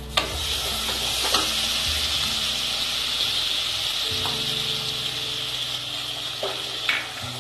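Spice-paste water poured into hot mustard oil and mustard-poppy paste in a nonstick kadai, bursting into a sudden sizzle that then runs on steadily as the mixture is stirred with a wooden spatula. The spatula knocks against the pan a couple of times.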